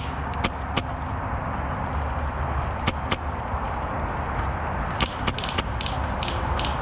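Suppressed HPA airsoft rifle (HK416 replica) firing single shots: sharp clicks in ones and pairs, a few close together about five seconds in, over a steady outdoor rumble.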